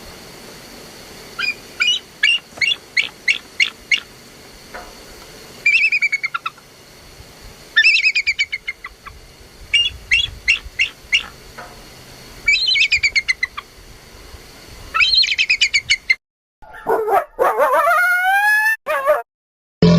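Animal calls: runs of short, quick bird-like chirps, several notes to a run, repeat over a steady background hiss. Then, after a cut about sixteen seconds in, several pitched calls each slide steeply down in pitch.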